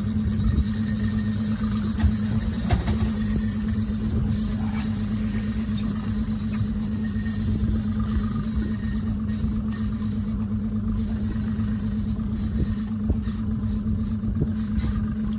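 A boat motor running steadily: a constant low hum with a droning tone, with a few faint clicks over it.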